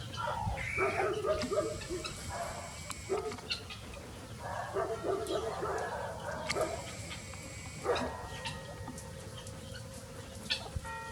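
Farmyard animals calling: two bouts of harsh, bark-like calls, the first in the opening seconds and the second about four to six seconds in, with a sharp knock about eight seconds in.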